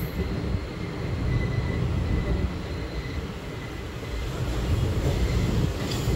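ICF passenger coach running along the track: a steady low rumble of wheels on rails, with a sharp click near the end.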